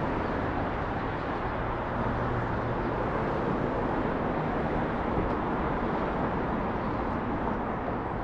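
Steady noise of a car driving along a road: tyres on pavement and engine running at an even level.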